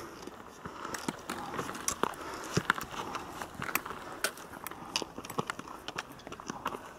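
Hikers' footsteps on a loose stony trail, with the metal tips of trekking poles clicking on rock in an irregular run of sharp ticks several times a second.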